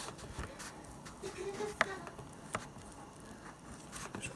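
Thin clear plastic fruit packaging crinkling and clicking as it is handled, with scattered sharp clicks and a louder one about two seconds in.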